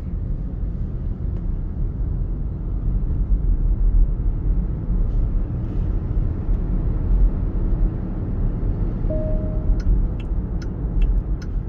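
Steady low road and tyre rumble inside the cabin of a NIO electric SUV picking up speed. A short single tone sounds about nine seconds in.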